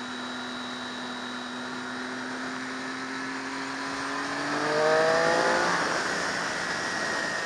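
Motorcycle engine running steadily at cruise over wind noise, then revving up in a rising pitch about four seconds in, loudest around the fifth second, before settling back under the wind rush.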